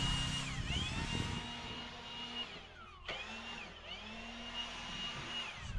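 Electric power tool motor whining, its pitch dipping briefly and recovering several times as it loads under cutting or drilling. The motor stops about halfway through, then starts again with a click.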